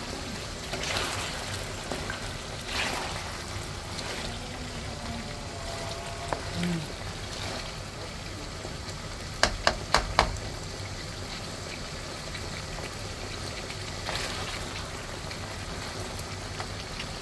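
Pan of igado sizzling and simmering steadily on the stove, with four quick sharp clicks about ten seconds in.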